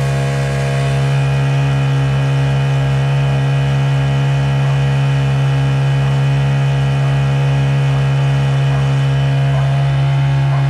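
Honda GX50 50cc air-cooled four-stroke outboard running at a steady throttle, a loud even drone that holds one pitch throughout.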